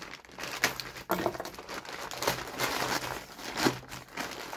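A small mail parcel's packaging being crinkled and torn open by hand, with a few sharp rips.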